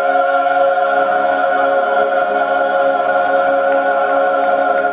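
Male klapa ensemble singing one long held chord in close multi-part harmony.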